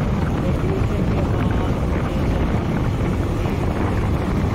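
Wind rushing over the microphone together with the engine and road noise of a moving motorcycle, a steady even rush with no break.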